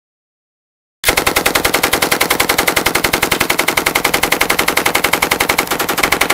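M249 SAW 5.56 mm light machine gun firing one long continuous burst of rapid, evenly spaced shots, starting about a second in and stopping near the end.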